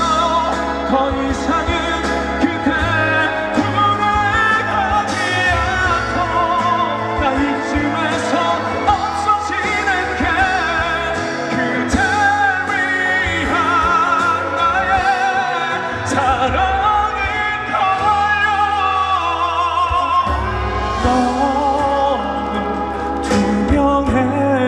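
A male singer's live ballad vocal with vibrato over an amplified band backing, sung through a concert sound system.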